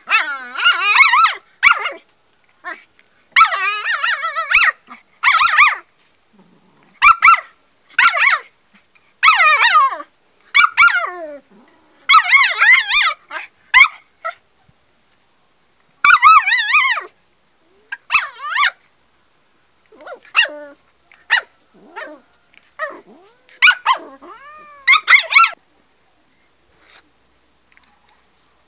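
A shepherd-dog puppy and an angry tomcat scuffling, giving a rapid string of high, wavering growling cries and yelps, which die away near the end.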